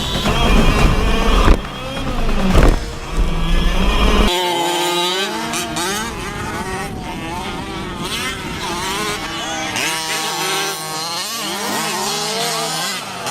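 Radio-controlled race cars' small engines buzzing, their pitch rising and falling as they speed up and slow down through the track. The first four seconds or so are louder and deeper, and that part cuts off abruptly.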